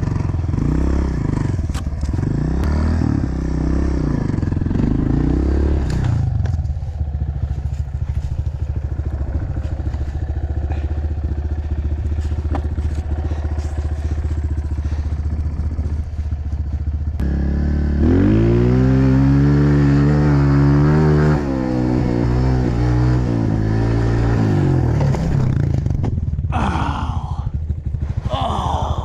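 Pit bike engine revving up and down as it rides, its pitch rising and falling, with a hard climb in revs about two-thirds of the way through.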